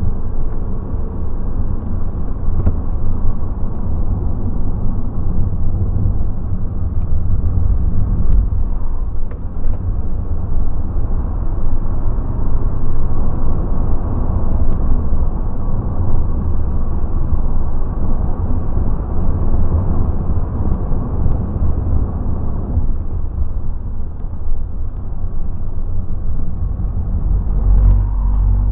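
Car driven hard around a race circuit, heard from inside the cabin: a loud, steady deep rumble of engine and road noise, swelling a little louder near the end.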